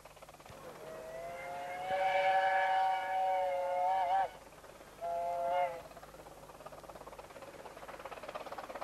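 Steam locomotive whistle on a 15-inch gauge miniature main-line engine. It gives one long blast of several tones, which slides up in pitch as it opens and wavers as it shuts off, then a short second blast. Faint rhythmic exhaust beats of the approaching engine follow near the end.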